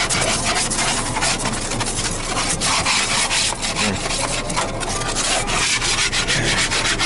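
Continuous loud, scratchy rubbing and rasping noise.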